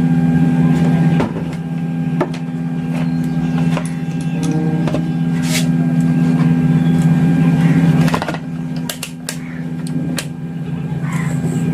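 Steady low-pitched hum from the powered-on Intex home theatre's woofer, dipping briefly about a second in and again near the end, with a few sharp clicks.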